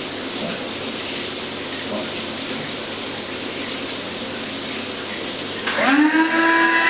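Steady hiss of running water. Near the end a pitched tone slides up and then holds.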